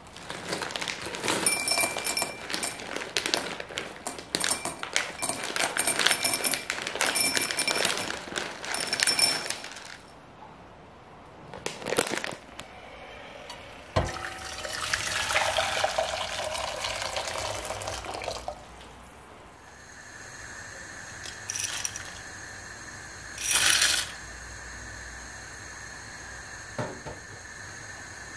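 Dry short pasta pouring from a bag into a ribbed glass tumbler: a dense rattle of small hard clicks for about ten seconds. Then water pours from a kettle into a pot, rising in pitch as it fills, for about four seconds. After that comes a steady faint hiss with a thin high tone, broken once by a short louder rush.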